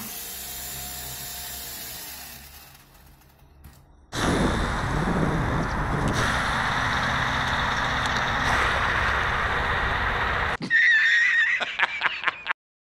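A faint whirring with gliding pitch, then several seconds of loud, steady rushing noise of wind on the microphone, then a man laughing heartily in loud bursts near the end.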